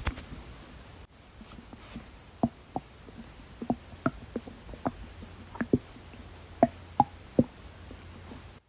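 Human stomach gurgling: a run of about a dozen short, bubbly pops and squeaks, the sign of an upset stomach full of soda.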